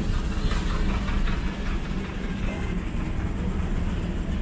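Steady low engine rumble and rattling road noise from inside a small motor vehicle driving through city traffic.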